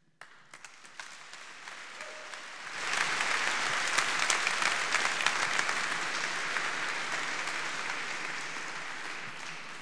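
Audience applauding at the end of a talk: the clapping starts scattered, swells to full strength about three seconds in, then slowly dies down.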